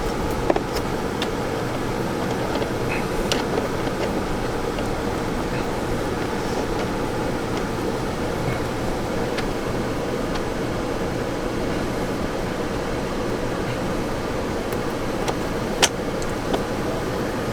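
Steady hum inside a Jeep Gladiator's cabin, with a few short clicks from the phone mount being fitted, the sharpest near the end.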